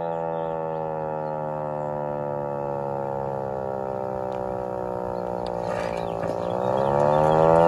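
Vixen Horns VXS-1200M hand-crank siren wailing: its pitch slowly falls for about six seconds, then it is cranked up again and the tone climbs and gets louder near the end.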